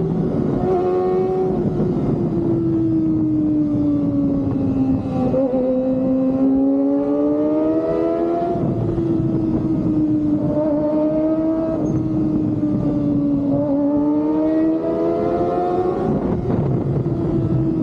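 Kawasaki ZX-25R inline-four engine with an Austin Racing aftermarket exhaust, running hard at high revs while the bike is ridden. Its pitch sinks and climbs slowly with the throttle, dropping quickly about eight and sixteen seconds in.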